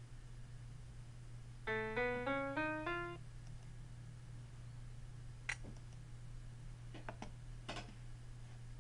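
Five short piano notes played in quick succession, each a step higher in pitch than the last: a rising melodic contour played as a hearing test stimulus. A few seconds later come four short clicks, over a steady low hum.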